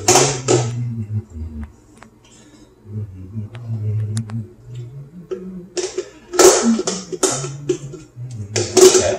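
Spice shaker jar shaken by hand, dry seasoning rattling out in short bursts of several shakes: one at the start, a longer run around six to seven seconds in, and another near the end.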